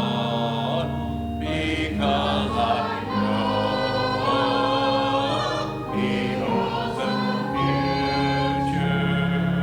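Church congregation singing a hymn together, many voices over sustained instrumental accompaniment with held low notes that change chord every second or two.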